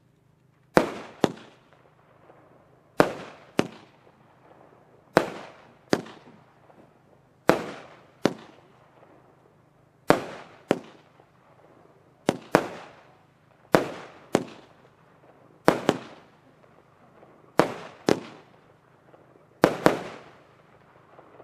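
Weco 'Wild Crush' 30 mm fireworks cake firing shot after shot: sharp bangs in pairs about every two seconds, each bang trailing off quickly.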